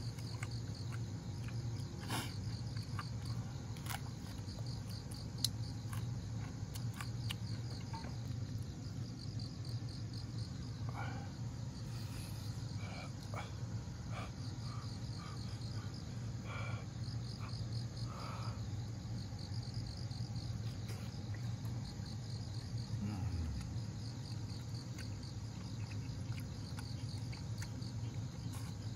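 Insects chirping in repeated trains of rapid pulses over a steady low hum, with a few scattered clicks and short higher blips.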